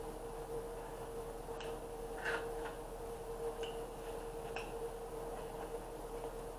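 Faint chewing and eating sounds, a few soft scattered clicks, over a steady low electrical hum.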